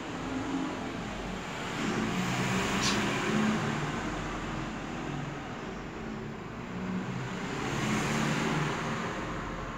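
Road traffic noise, with vehicles passing that swell about two seconds in and again about eight seconds in.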